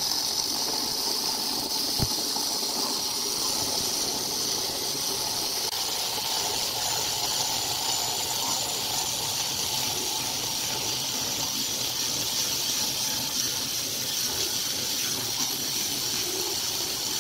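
Handheld electric stone cutter with a water-fed diamond blade running steadily as it cuts along the edge of a black granite slab. There is a brief knock about two seconds in.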